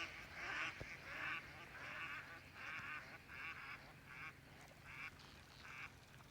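A mallard quacking faintly: a series of about nine quacks, roughly one every two-thirds of a second, each shorter and fainter than the last, the pattern of a hen mallard's decrescendo call.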